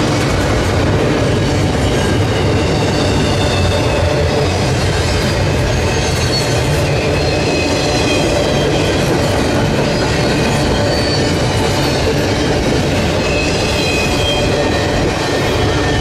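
Double-stack intermodal well cars of a CSX freight train rolling past, a steady loud rumble and clatter of steel wheels on rail with thin, wavering high wheel squeals over it.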